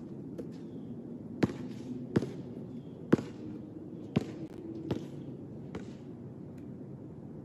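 Basketball bouncing on a hard court: six sharp bounces, roughly one a second, the loudest about three seconds in.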